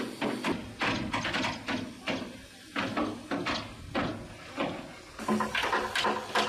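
Metal tools knocking and scraping on the rusty steel deck of a boat, in irregular strikes a few times a second. A steady machine hum joins about five seconds in.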